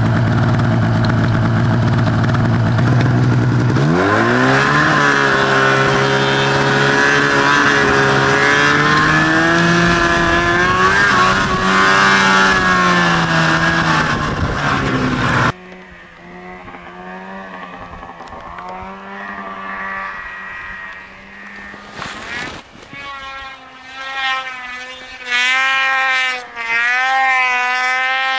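Two-stroke snowmobile engine running steady, then revving up about four seconds in and holding a high, wavering pitch while riding, heard from on board. After a sudden cut about halfway through comes a quieter stretch, then a snowmobile revving again and again near the end, its pitch rising and falling as it throttles through deep snow.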